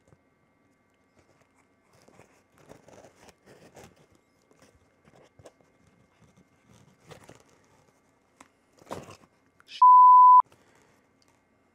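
Faint rustling and scratching of fingers working a foam windscreen onto a lavalier microphone capsule, with a sharper click about nine seconds in. Then a single loud, steady beep at one pitch lasting about half a second.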